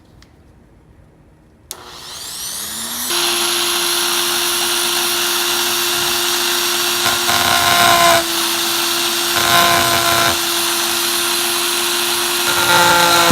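Dremel rotary tool switched on about two seconds in, spinning up with a rising whine and then running at a steady high speed as it cuts slots in the front lip. The grinding noise changes a few times as the bit bites into the material.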